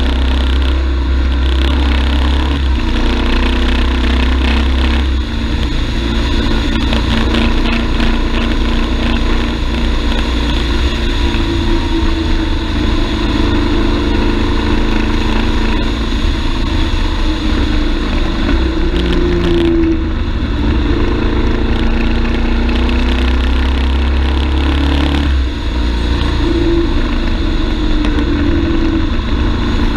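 BMW F 850 GS parallel-twin engine running under way, its pitch rising and falling with the throttle, over a steady low wind rumble on the microphone.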